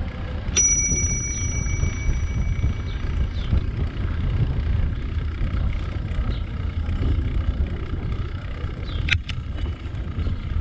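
A bicycle bell rings once about half a second in and dies away over about two seconds, over a steady low rumble from riding along on a bicycle. A single sharp click comes near the end.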